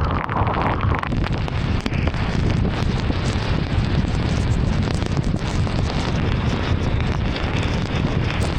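Driving through heavy rain: rain and tyre spray on a wet road make a loud, steady hiss over a low rumble.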